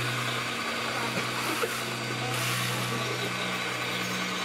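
Radio-controlled Liebherr wheel loader model working: a steady low drone with a whirring motor whine that shifts slightly lower about halfway through.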